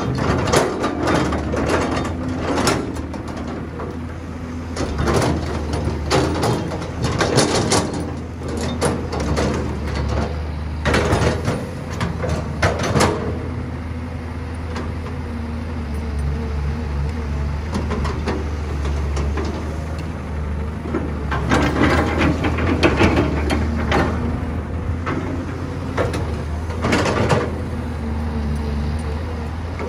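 Caterpillar hydraulic excavator's diesel engine running steadily under load, with repeated spells of scraping and clattering as the bucket digs into the dirt pile and soil and rocks are moved.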